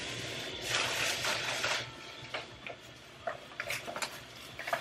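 Brown paper grocery bag rustling and crinkling as it is handled, loudest for about a second near the start, followed by a few light taps and clicks.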